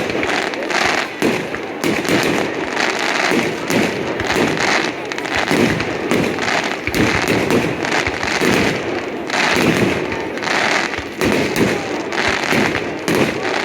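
Fireworks display going off: a dense, continuous run of bangs and crackles with no real pause.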